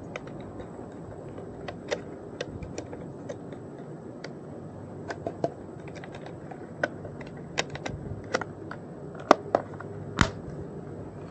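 Keystrokes typed unevenly on a keyboard, entering login credentials, with a few harder key presses near the end. A steady low hum runs underneath.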